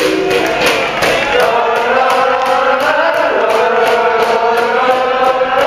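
A baseball cheering section singing a fight song in unison, with many voices together over a steady beat of about four hits a second.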